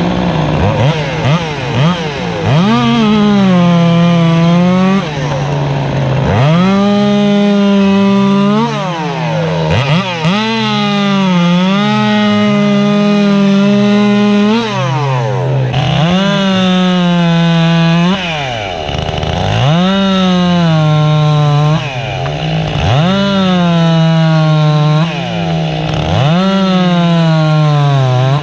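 Two-stroke racing chainsaw cutting through a log in repeated runs: it revs up, holds a high, steady pitch under load for a few seconds, then drops back, about seven times in a row.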